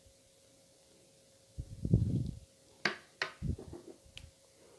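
Tableware handling: a dull thump about two seconds in, then a few light clicks and knocks as a spoon and a small bowl are put down on the table. A faint steady hum runs underneath.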